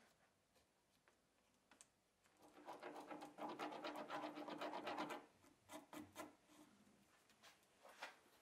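Steel putty knife scraping and working white filler on a sheet of paper: a rapid run of short scraping strokes for about three seconds, then a few single scrapes.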